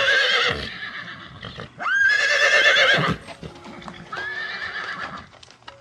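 Equine whinnying: repeated high, quavering neighs, the loudest one in the middle and a softer one near the end, with faint clicks between calls.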